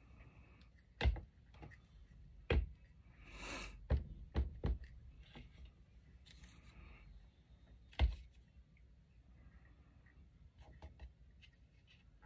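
Handling sounds of paper crafting on a tabletop: scattered sharp taps and knocks as tools and tags are set down, about six in all, with a brief rustle about three and a half seconds in.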